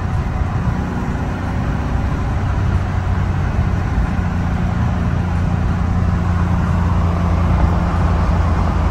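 Engine drone and road noise of a manual all-wheel-drive car, heard from inside the cabin while cruising in third gear; a steady low hum that grows slightly louder toward the end.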